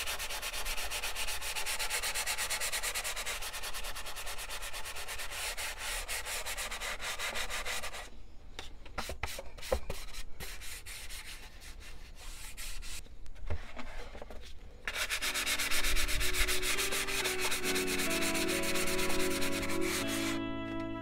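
Hand sanding: sandpaper on a small block rubbed back and forth over cured Bondo glazing and spot putty on a balsa wood fuselage. The rubbing stops for several seconds midway, with a few light knocks, then starts again as background music with steady notes comes in.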